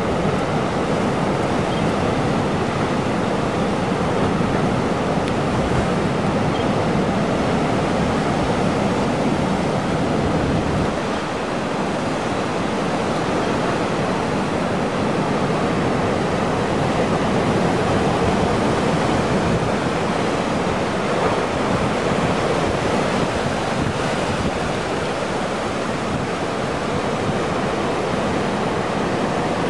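Ocean surf surging and crashing through a rocky chasm, a steady churning wash of water.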